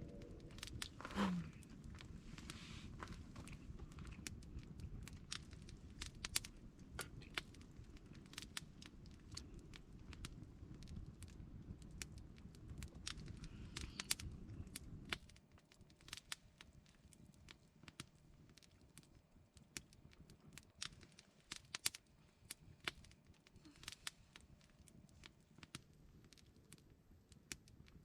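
Wood campfire crackling, with scattered sharp pops. A short falling tone comes about a second in, and a low rushing background drops away about halfway through.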